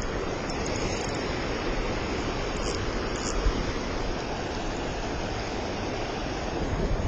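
Fast river water rushing through rapids below, a steady broad rush.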